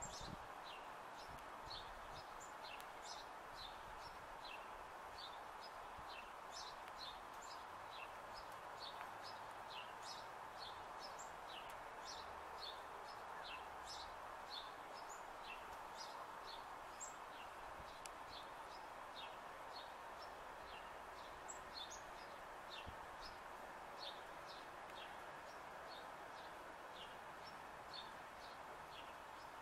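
Small birds chirping repeatedly, many short high chirps a second, over a faint steady outdoor background hum.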